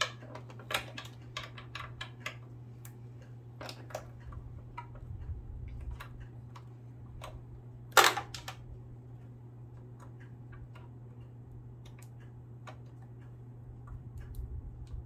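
Small screwdriver clicking and scraping on the needle-plate screws of a Singer sewing machine as they are unscrewed: a scattered run of light metallic ticks, with one louder knock about eight seconds in.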